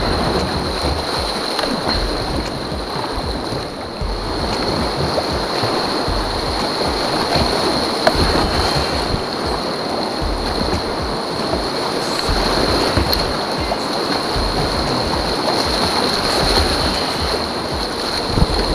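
Rushing river water through shallow rapids, heard from a kayak's bow, with wind and water buffeting the action-camera microphone and occasional paddle splashes.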